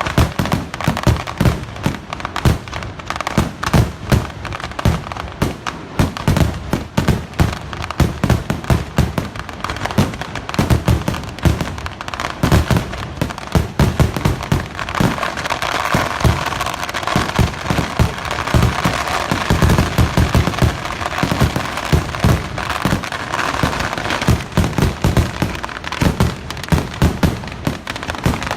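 Vedikkettu fireworks: a dense, unbroken barrage of firecrackers and shells going off in rapid succession, several bangs a second with crackling between them. The crackle thickens about halfway through.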